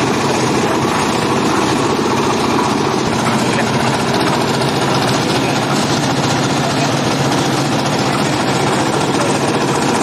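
Engine of a 2-in-1 concrete mixer and lift machine running steadily under power.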